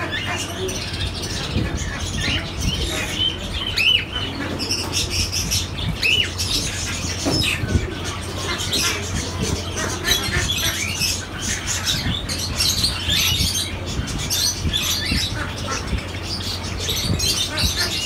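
Caged Java sparrows chirping: many short, overlapping chirps and calls, over a steady low hum.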